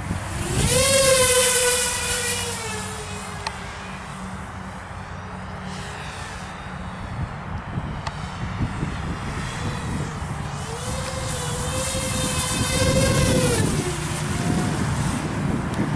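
Walkera F210 FPV racing quadcopter flying overhead, its motors and propellers giving a buzzing whine. The pitch jumps up sharply about half a second in as the throttle is punched, then sags slowly over the next few seconds. A second climb about ten and a half seconds in holds for a few seconds and drops off near the end.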